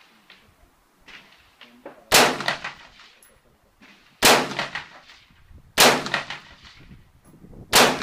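Four rifle shots spaced about two seconds apart, each a loud crack with a trailing echo.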